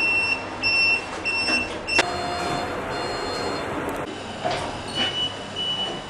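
Otis elevator beeper sounding short, high, evenly spaced beeps, about two a second. A click comes about two seconds in, and a second run of slightly higher-pitched beeps starts about five seconds in.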